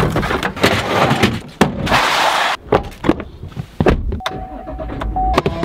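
Clunks and knocks of gear being handled in a pickup truck's bed and cab, with a brief rushing noise about two seconds in. Near the end there is a steady single-pitched tone, like a vehicle's electronic chime, lasting about a second.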